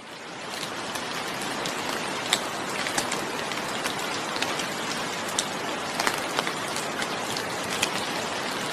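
Steady rain falling, with individual drops striking a surface as sharp ticks every second or so. It fades in over the first second.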